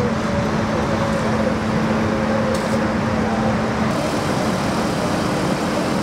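Steady noise of freeway traffic with a steady engine hum underneath. The hum changes to a different pitch about four seconds in.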